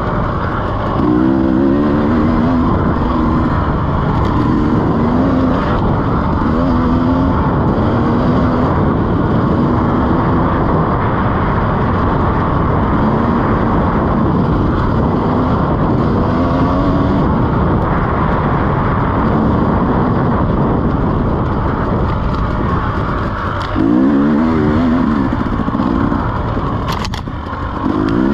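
2017 KTM EXC 300 two-stroke enduro engine under riding, its pitch rising and falling as the throttle is worked through the ride. There is a sharp rev-up about three-quarters of the way in and a brief drop off the throttle shortly before the end.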